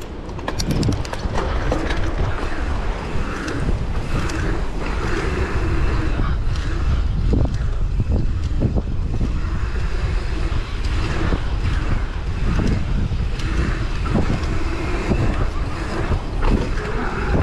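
Wind buffeting the microphone over mountain bike tyres rolling on asphalt pump track rollers, with a brief run of rapid clicks about a second in.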